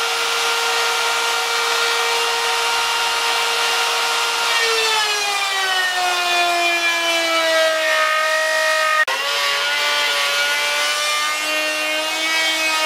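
Table-mounted electric router running with a steady high whine, then dropping in pitch about four and a half seconds in as the wooden board is fed into the spinning bit and the cut loads the motor. There is a brief jolt about nine seconds in, and then it keeps cutting at the lower pitch.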